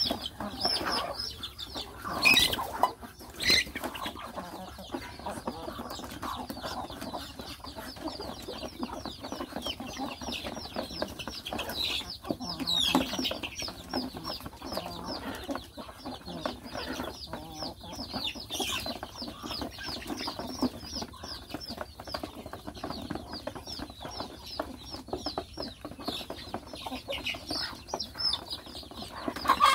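A flock of young chickens clucking and peeping all through, with many short high chirps, as they peck at feed together. Two sharp knocks stand out a few seconds in.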